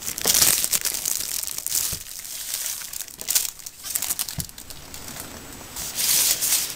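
Clear plastic wrapper crinkling as hands pull it off a boxed notebook, in bursts, loudest in the first second and again near the end.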